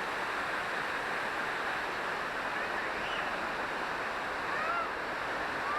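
Waterfall rushing steadily, a dense even roar of falling water, with faint distant voices over it near the end.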